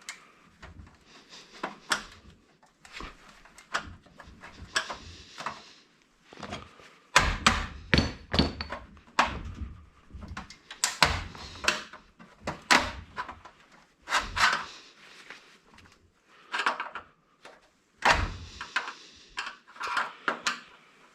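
Irregular knocking, clicking and scraping of hand tools working apart the casing of an electronic box being stripped for scrap, with a few heavier thuds about seven seconds in and again near the end.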